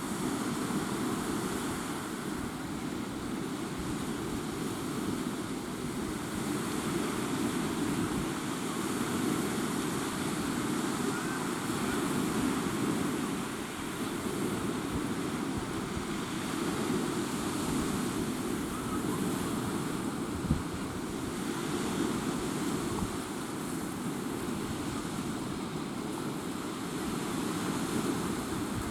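Steady rush of sea surf and wind, with wind buffeting the microphone, and one brief click about twenty seconds in.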